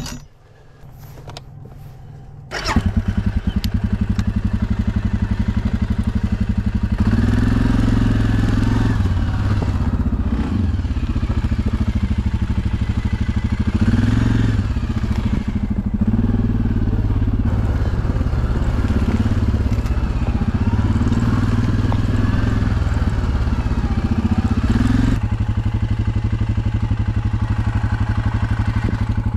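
ATV engine starting up suddenly about two and a half seconds in, then running, its pitch rising and falling for a long stretch before it settles to a steadier idle near the end.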